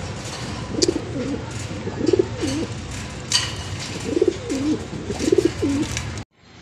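Racing pigeons cooing: four low, rolling coos, with a few sharp clicks among them. The sound cuts off suddenly near the end.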